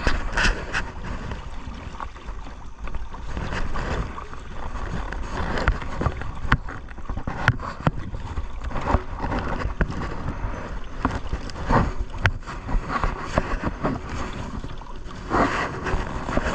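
Boat underway through floodwater: a continuous rumble of motor and water, with wind buffeting the microphone and scattered short knocks.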